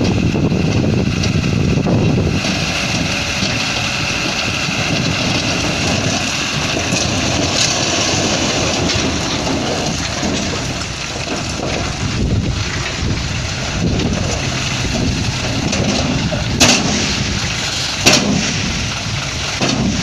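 Dump truck's diesel engine running steadily as its tipper bed is raised to dump a load of rock. Two sharp knocks about a second and a half apart near the end.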